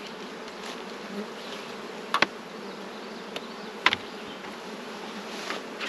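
Honey bees buzzing steadily around open-air beehives, with two short sharp clicks about two and four seconds in.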